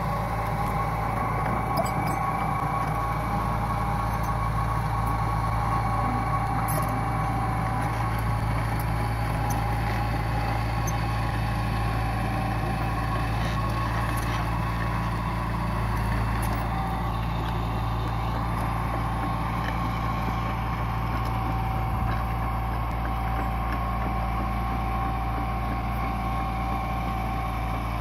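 Hitachi EX120 long-arm excavator's diesel engine running steadily, a constant low hum with a steady high whine over it.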